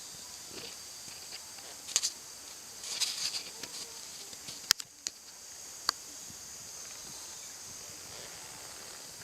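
A cat breathing through a congested nose as it blows a snot bubble, with scattered sharp clicks and short crackles over a steady high hiss.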